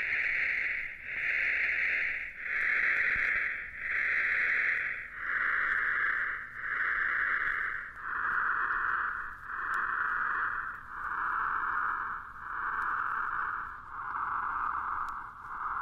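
Early computer-synthesized music: a slow, regular run of swelling hiss-like notes, about one every 1.4 seconds, each pitched a little lower than the last, so the line sinks steadily.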